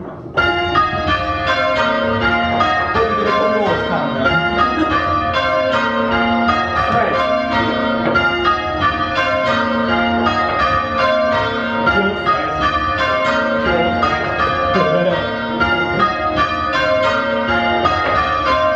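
A light ring of five church bells rung full-circle, the bells striking one after another in an even, repeating pattern of change ringing, with their tones overlapping as they ring on.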